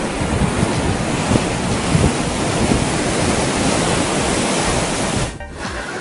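Ocean surf and wind blowing over the camera microphone, a steady loud rushing noise that drops out for a moment near the end.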